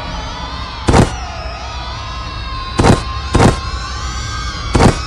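Five sharp impact hits over a steady, busy background sound: one about a second in, two close together near three seconds, and two more near the end.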